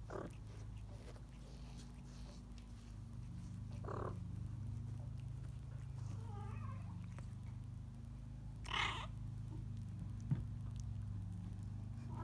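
A newborn Bengal kitten gives a few short, high mews and squeaks while its mother licks it. The loudest cry comes about nine seconds in. Underneath runs a steady low purr.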